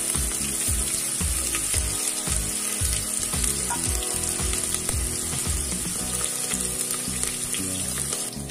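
Chopped onion, garlic, green chillies, bay leaf and panch phoron sizzling steadily in hot oil in a pressure cooker: a tadka frying.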